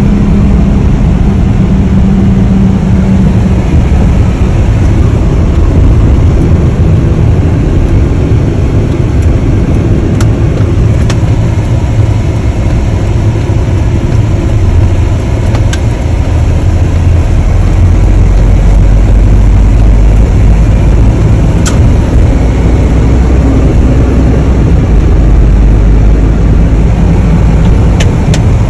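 Vehicle driving, heard from inside the cabin: a steady low engine and road rumble that grows heavier from a little past halfway, with a few faint clicks.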